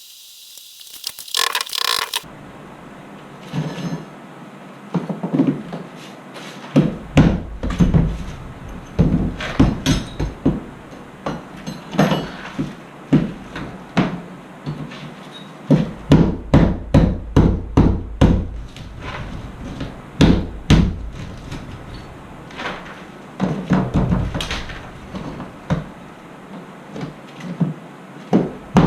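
Hammer striking and chipping at cement backer board and mortar in clusters of quick blows with short pauses, digging around roofing nails to get them out.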